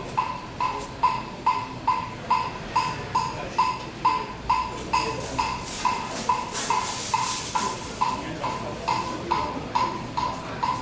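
Wooden fish (muyu) struck in a steady, even rhythm, about two and a half hollow knocks a second, the beat kept for temple chanting.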